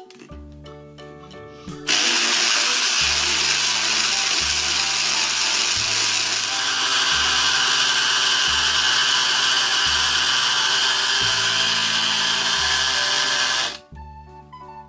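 A loud, steady motor whir starts about two seconds in and cuts off suddenly near the end, over children's background music with a slow bass line.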